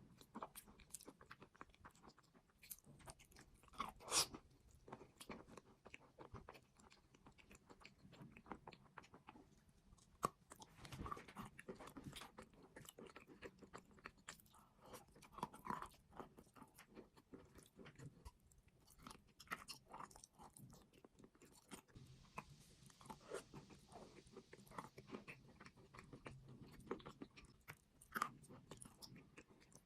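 A person biting and chewing crunchy chalk and clay close to the microphone: a steady run of sharp crunches, with a few louder bites scattered through.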